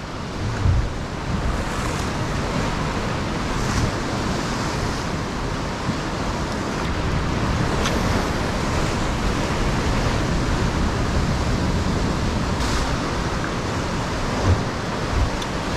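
Ocean swell surging and breaking against the rocks below, a steady rush of surf, with a few faint knocks.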